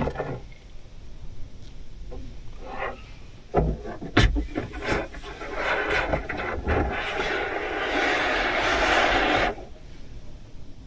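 Objects being handled: a few knocks, then a steady rubbing, scraping noise for about four seconds that stops suddenly.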